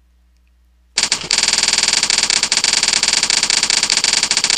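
Slideshow typewriter sound effect: a fast, continuous clatter of key clicks starting about a second in, playing while text animates onto the slide letter by letter.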